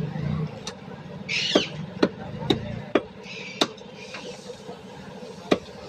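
Meat cleaver chopping chicken on a cutting block: about seven sharp, unevenly spaced chops. Two short, shrill, bird-like squawks come between the first few strikes.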